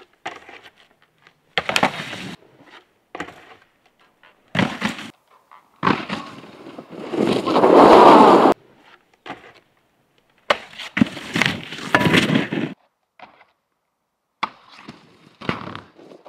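Snowboard sliding and scraping on snow and a metal stair handrail, in five separate bursts with silent gaps between; the longest and loudest comes about seven to eight seconds in.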